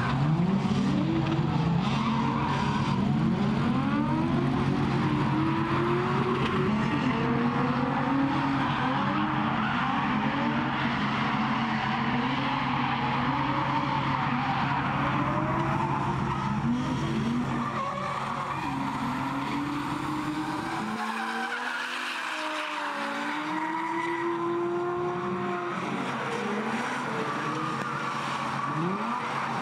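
Several drift cars in a tandem drift, their engines revving up and down over and over as they slide, with tyres skidding and squealing. The deep low rumble drops away about two-thirds of the way through.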